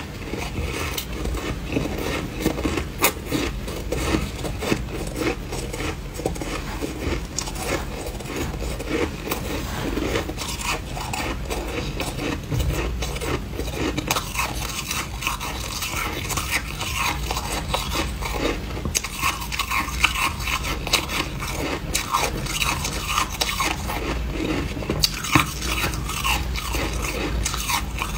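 Freezer frost being scooped with a metal spoon and bitten and chewed, a dense, irregular run of crisp crunches and scrapes.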